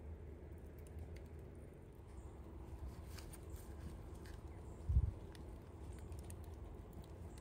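Wood campfire crackling faintly under a grill grate, with scattered small pops, and a dull low thump about five seconds in.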